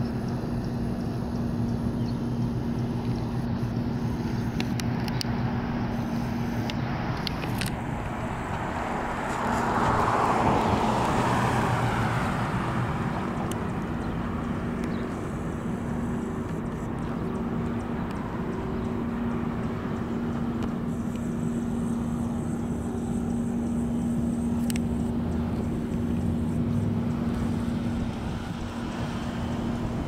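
Road traffic at an intersection: a car passes about ten seconds in, over a steady low hum.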